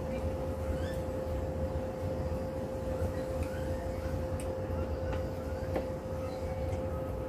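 A steady machine hum holding one constant pitch over a low rumble, with a few short, high rising chirps above it.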